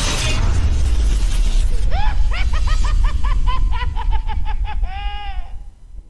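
Logo intro sound effect: a deep rumbling crash, with a cackling laugh from about two seconds in, quick rising-and-falling 'ha's ending in a drawn-out 'haaa' and one last cackle, fading out near the end.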